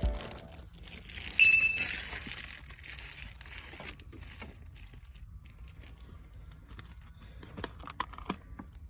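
A sharp, ringing clink about a second and a half in, followed by scattered small clicks and crackles of things being handled.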